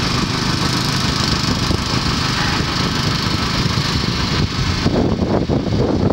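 Small engine running steadily, driving a pontoon boat's homemade paddle wheels, which churn and splash the water. About five seconds in, the high splashing hiss drops away and an uneven low rumble takes over.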